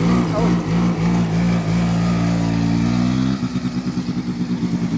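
Small ATV engine running under throttle at steady revs as the quad rides off, then about three and a half seconds in the throttle eases and the note drops to a lower, pulsing beat.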